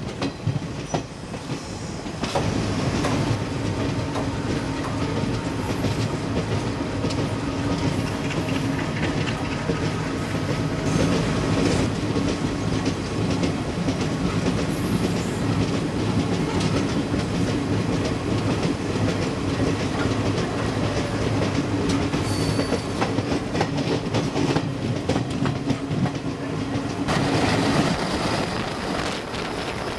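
Passenger train coaches running at speed: a steady rumble and clatter of wheels on the rails with a low hum. The sound grows fuller about two seconds in, and near the end the hum fades, leaving mostly rushing air.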